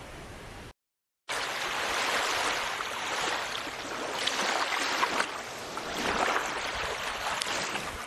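Rushing, splashing water that swells and eases in irregular surges. It starts about a second in, after a faint hiss and a brief cut to total silence.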